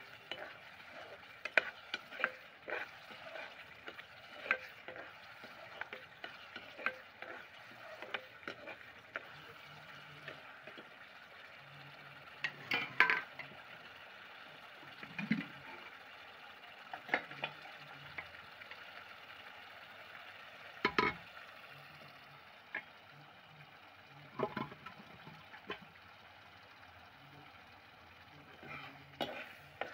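Thick rajma masala gravy bubbling in a kadai with a steady hiss, while a metal slotted spoon stirs it and now and then scrapes and knocks against the pan. It is being cooked down until the oil separates and rises to the top.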